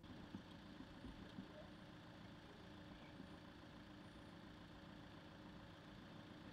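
Faint, steady hum of a small homemade cardboard-bodied cart's motor as it drives along the road, with a thin steady tone over light background noise.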